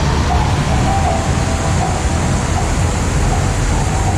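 Steady rumble of street traffic and city noise, with faint scraps of tones above it.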